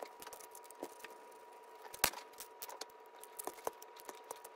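Small scattered clicks and taps of a screwdriver and fingers working the plastic gearbox access panel off an RC car's chassis, with one sharper click about two seconds in. A faint steady hum runs under it.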